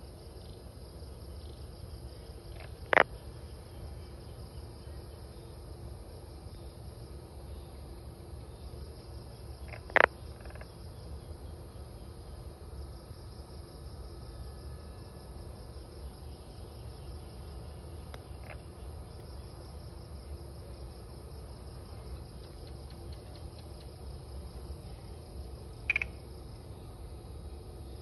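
Night insects, crickets by their sound, chirring steadily in a high register over a low background rumble. Three short, sharp clicks stand out, a few seconds apart, the last one near the end.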